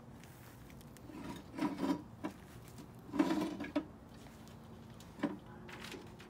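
Handling noise from putting together a plastic-framed animatronic figure: two short spells of rubbing and scraping, with a few sharp knocks or clicks.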